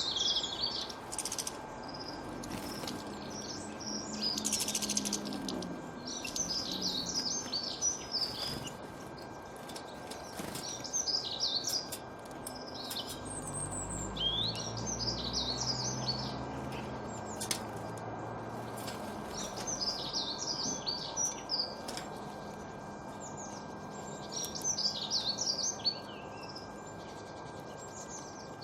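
Small birds chirping in quick high bursts of twittering, one burst every couple of seconds, over a faint steady hum, with a low rumble in the middle.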